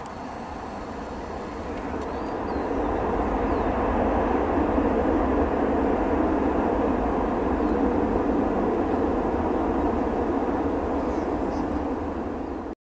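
Jet noise from a Boeing 737-800's CFM56-7 engines during the landing roll: a steady rush that swells over the first few seconds, then holds, and cuts off suddenly near the end.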